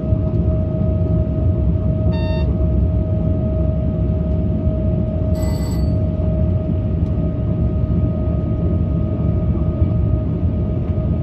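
Train running at speed, heard from the cab: a steady low rumble with a constant whine over it. Two short beeps break in, one about two seconds in and a brighter one about five and a half seconds in.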